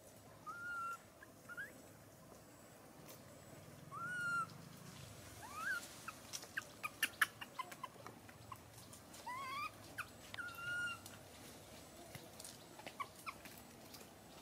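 Baby long-tailed macaque crying: several short, thin, high whistle-like calls, some rising and some arched, in bouts, the distress crying of an infant denied the chance to nurse. A run of sharp clicks comes in the middle.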